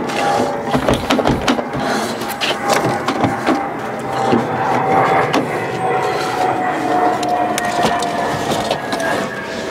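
Clicks, knocks and scrapes of a Fiat 500's plastic dashboard being worked loose and eased out of the car.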